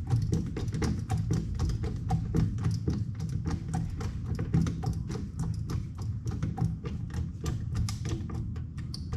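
Music with a quick, steady percussive beat.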